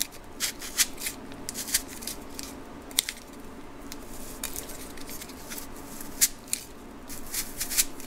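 Foam pipe wrap covered in painter's tape being worked inside an AR-15 handguard: irregular rubbing, scraping and small clicks as the jig wedges into a pressure fit.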